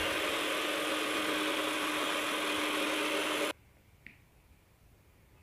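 Geepas electric hand mixer running steadily, its beaters whisking egg whites in a plastic bowl. The motor hum stops suddenly about three and a half seconds in.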